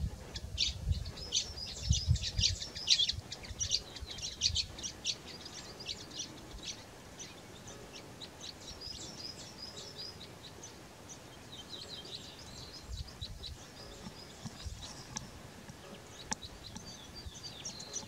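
Sparrows chirping: many short, high chirps in quick succession, busiest in the first five seconds, then sparser with small flurries later on. A few low thumps sound in the first three seconds.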